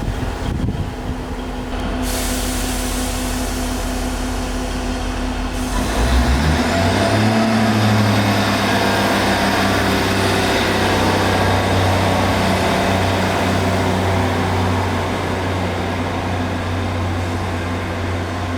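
Diesel train engine running, then rising in pitch about six seconds in as it opens up and holds a steady note, with a faint rising whine above it.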